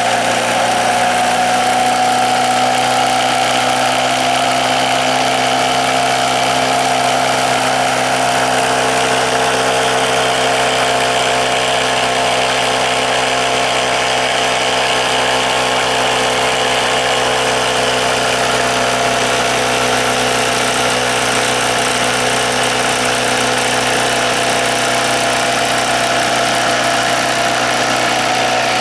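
Small alcohol-fuelled model-boat engine running steadily at an even speed, driving the boat's shaft generator.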